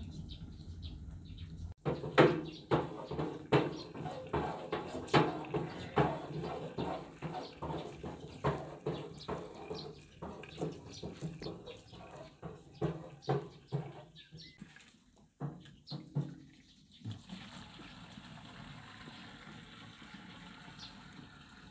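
Hand-lever well pump being worked, its handle and chain clanking in quick strokes about twice a second. Near the end the strokes stop and water runs steadily from the spout.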